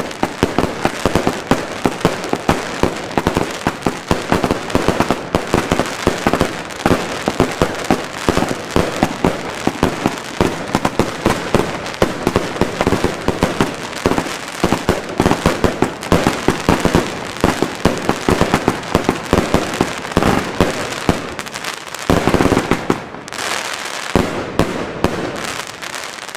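Two Evolution Snowstorm firework cakes, 200 shots of 1.2 inch between them, firing together in a rapid, dense stream of launch thumps and bursts. The firing thins out about 22 seconds in, with a few last scattered shots as the cakes finish.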